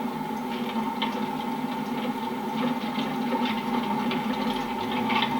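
A motor running steadily: an even hum holding a couple of fixed tones, with light irregular ticking over it.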